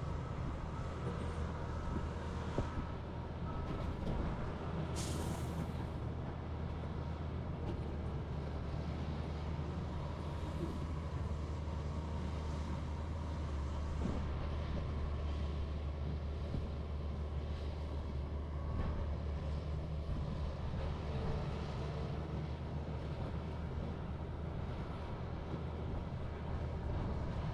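Heavy diesel machinery running steadily with a low, even drone. A short hiss comes about five seconds in.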